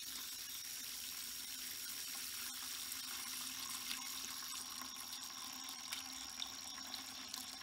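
Water from a garden hose running steadily into a partly filled plastic bucket, the stream splashing onto the water surface.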